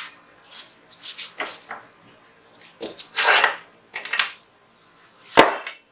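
Metal parts of a Zigana 36 9mm pistol being handled and fitted together during reassembly: scattered clicks and scraping, a longer sliding rub about three seconds in, and a sharp knock near the end.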